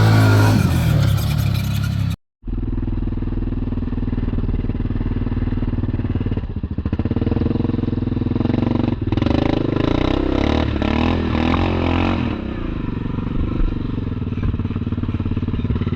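Yamaha Kodiak 700 ATV's single-cylinder four-stroke engine running steadily as the quad rides along, with a short break about two seconds in and a stretch of clattering from about nine to twelve seconds.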